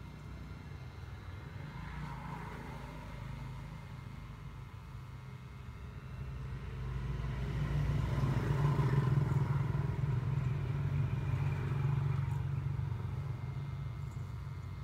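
Low, steady engine rumble of a motor vehicle, swelling in loudness about halfway through and then slowly fading, as if passing by.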